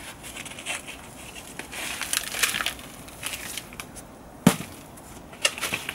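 Black plastic plant pot being squeezed and tapped upside down to free a pot-bound thyme root ball: scattered crackles of flexing plastic and rustling compost, with one sharp knock about four and a half seconds in.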